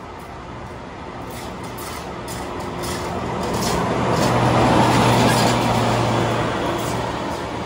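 Diesel engine of a yellow rail track maintenance machine running as it rolls past on the rails, a steady hum that grows louder to a peak about five seconds in and then fades.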